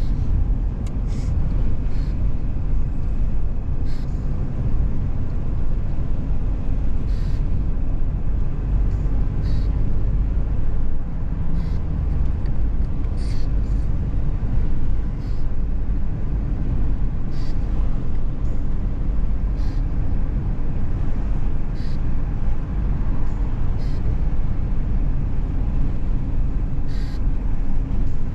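A moving car's steady low road and engine rumble, with scattered faint short clicks.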